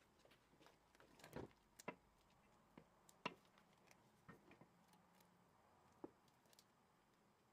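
Faint, irregular knocks and ticks of a wooden spoon against a stainless steel pot as strawberry jam is stirred, with the sharpest knocks about two and three seconds in.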